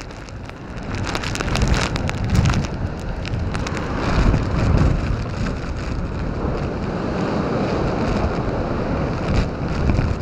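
Storm wind gusting hard and buffeting the microphone, with rain and breaking storm-surge waves; the loudest gusts come about two and a half and four and a half seconds in.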